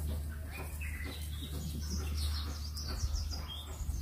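Birds chirping with short, high calls, several in quick succession in the second half, over a steady low rumble.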